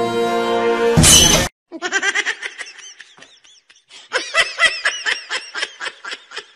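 Background music, cut off about a second in by a loud half-second burst of noise, then high-pitched laughter in quick, repeated bursts.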